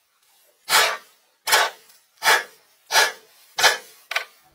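Hatchet chopping through the stems of a bundle of leafy branches on a wooden step: six even strokes, a little under one a second, each a short rustling hit.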